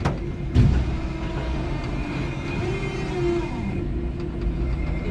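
5-ton electric forklift working under a load of OSB board packs: a steady motor whine over low rumbling, with a few slow pitch glides. A sharp knock comes at the very start and a heavier thump about half a second in.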